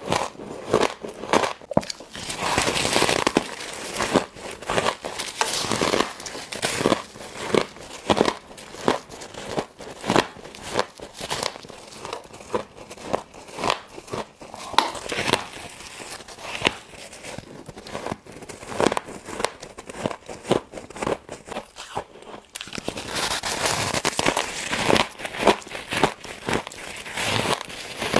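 Freezer frost being bitten and chewed close to the microphone: a long run of crisp, crackling crunches, thicker and hissier near the start and again towards the end.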